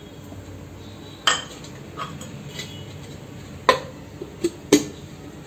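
Sharp clinks and knocks of a stainless steel mixer-grinder jar and its plastic lid being handled and fitted in place, a handful of separate strikes.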